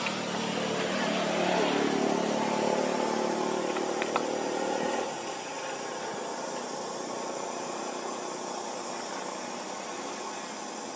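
A motor vehicle's engine running at a steady pitch, which stops abruptly about five seconds in, with a single click just before. After that there is only a steady background hiss.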